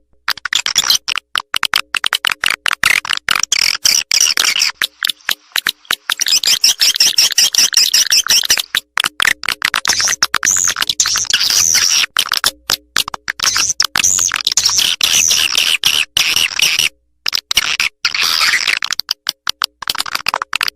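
Swiftlet lure-call recording: rapid chirping and twittering of edible-nest swiftlets over a dense train of fast clicks, high-pitched, with a short break about seventeen seconds in. A call sound used to draw swiftlets into a nesting house.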